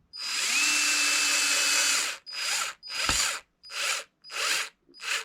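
Cordless electric screwdriver driving a screw into an RC truck's chassis brace. It runs steadily for about two seconds, then gives five short pulses about half a second apart as the screw is snugged down.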